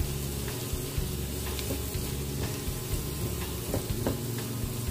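Chopped greens and garlic sizzling in butter in a nonstick frying pan, stirred and scraped with a silicone spatula, with a steady frying hiss and scattered light ticks.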